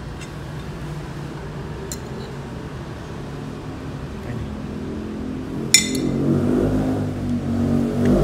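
A metal spoon clinks once against a ceramic plate about six seconds in, over a low steady hum. Near the end a low drone swells up.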